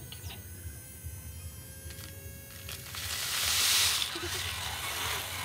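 Gravel and soil sliding and pouring out of a tipping RC dump truck bed: a hissing, crunching slide that swells about three seconds in and fades near the end. Under it runs the steady buzz of the truck's small electric tipper motor raising the bed.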